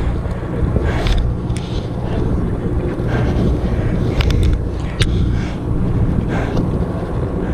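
A sportfishing boat's engine running with a steady low hum, with wind buffeting the microphone in gusts. A few sharp clicks come about four to five seconds in.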